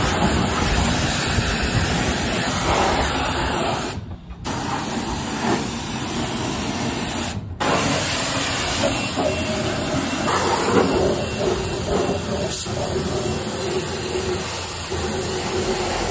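High-pressure car-wash spray wand blasting water onto an engine bay, a steady hiss that drops out briefly twice.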